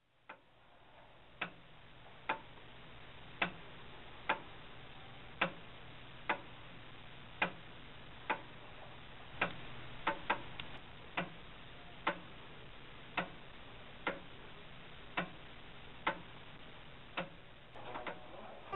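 Mechanical clock ticking about once a second, the tick and tock alternating slightly uneven in spacing, over a low steady hiss. A few quicker extra clicks come about ten seconds in, and there is a brief burst of noise near the end.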